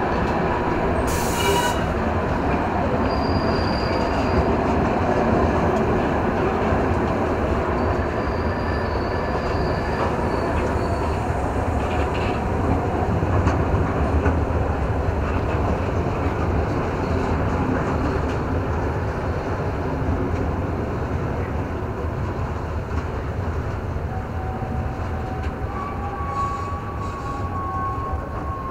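Ore freight train's hopper wagons rolling past close by: a steady rumble of steel wheels on rail, with thin high wheel squeals now and then and a longer squeal near the end.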